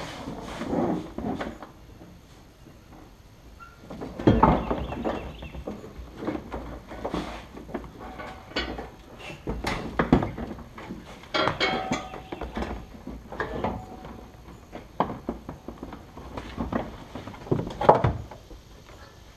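Irregular knocks, clunks and rattles of a steel bolt-in roll cage and plastic interior trim being worked into a car's interior. The hardest knocks come about four seconds in and again near the end.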